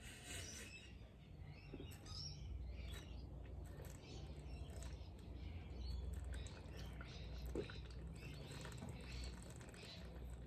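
Birds chirping and tweeting repeatedly over a steady low rumble.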